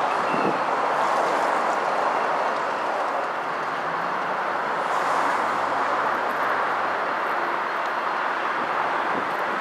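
A consist of Canadian Pacific diesel-electric locomotives, led by a GE ES44AC, running light and rolling slowly toward the listener. The engines make a steady low hum under a continuous rushing noise.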